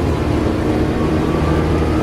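Diesel engine of a Volvo Olympian double-decker bus running with a steady low drone.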